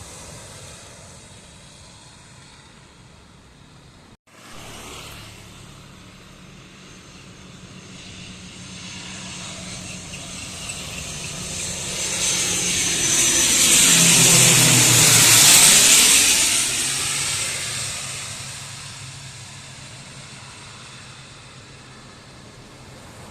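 CASA C-295 twin-turboprop transport aircraft passing close on a touch-and-go, its engine and propeller sound swelling to a peak about two-thirds of the way through, then fading as it moves away.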